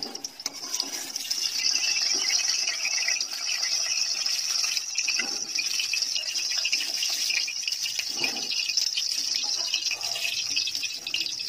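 Hot mustard oil sizzling steadily in a kadai as fried potato pieces are lifted out with a metal spoon, the hiss growing louder about a second and a half in, with a few soft knocks of the spoon against the pan.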